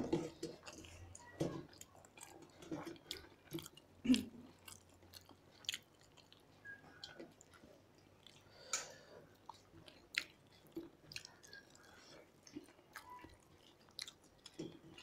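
Two people eating rice and fish curry by hand: scattered chewing and mouth sounds, with light clicks of fingers against steel plates.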